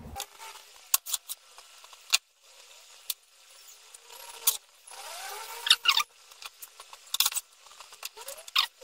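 Hands working plastic zip ties on a small quadcopter frame on a wooden desk: scattered sharp clicks, taps and short plastic scrapes, with a few brief squeaky rubs about five to six seconds in and again near the end.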